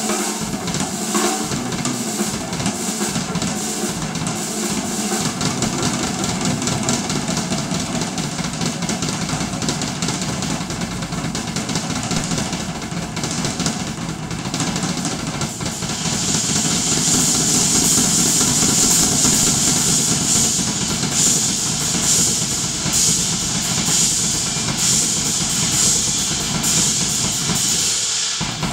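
Yamaha acoustic drum kit played solo: dense, continuous strokes on the drums and bass drum. About halfway through it gets louder as a cymbal wash rings over the top.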